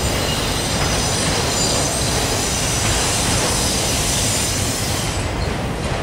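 Loaded autorack freight cars rolling past, a steady rumble of steel wheels on rail with a thin, high squeal from the wheels that fades about five seconds in.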